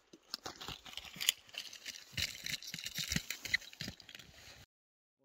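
Close, irregular crunching and rustling from a skier's outdoor clothing and gear in the snow, which cuts off suddenly near the end.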